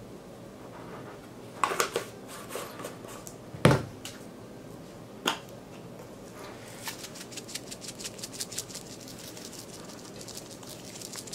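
Kitchen handling noises: a few clicks and one sharp thud as things are set down on a wooden counter, then a run of quick light ticks like seasoning being shaken from a spice bottle onto food in a cast iron skillet.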